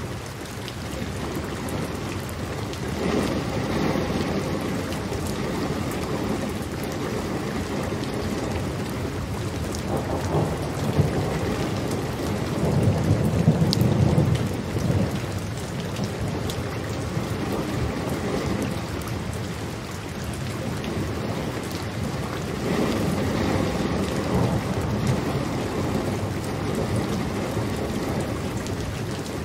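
Steady rain falling, with a low roll of thunder swelling up around the middle and then fading.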